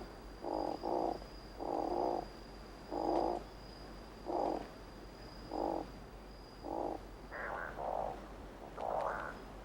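Seychelles scops owl giving its rasping, frog-like croaking call, short calls about once a second, some doubled. Near the end, higher and quicker calls join in. A thin steady high whine runs under the calls and stops about three-quarters of the way through.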